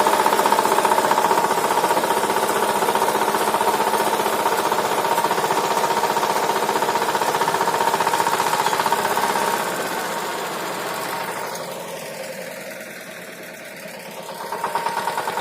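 Single-cylinder engine of a walk-behind tiller running steadily. It fades for a few seconds about two-thirds of the way through, then grows louder again near the end.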